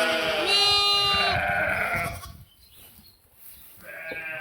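Sheep and lambs bleating, several calls overlapping for about two seconds, including a high-pitched lamb bleat. It then goes nearly quiet before bleating starts again near the end.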